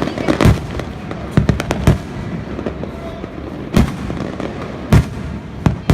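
Fireworks shells bursting in irregular loud bangs: a quick cluster of bangs in the first two seconds, then single bangs spaced about a second apart, over a continuous background noise.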